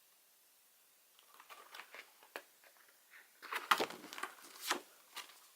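Paper rustling and crinkling as the pages of a standing paper calendar are handled and turned, starting about a second in, with the loudest page handling in the second half.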